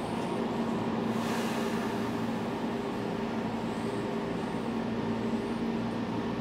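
Steady running noise of a train heard from on board, with an even hum and a brief hiss about a second in.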